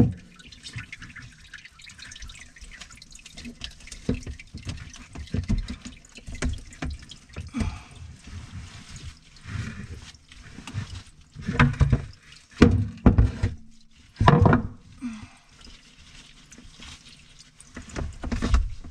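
Water dripping and trickling under a kitchen sink, with irregular knocks and clunks of the drain plumbing being handled; the loudest clunks come in a cluster a little past the middle.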